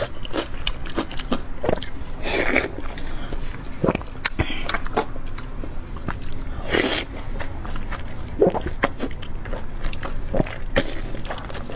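Close-miked eating sounds: chewing, wet mouth smacks and scattered sharp clicks, over a low steady hum.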